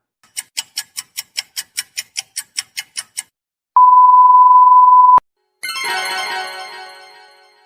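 Three editing sound effects in a row: a quick run of about fifteen sharp ticks, about five a second; then a steady 1 kHz censor-style beep lasting about a second and a half, ending with a click; then a ringing chord of several tones that slowly fades away.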